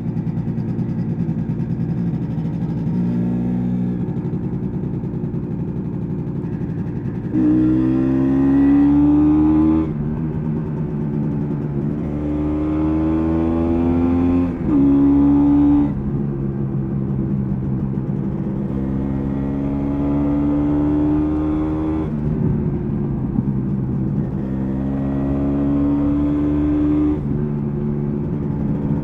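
1986 MZ ETZ 250's single-cylinder two-stroke engine under way, recorded on board: it pulls hard four times, its pitch rising through each pull, with a quick gear change partway through the second, and runs lower and softer between the pulls.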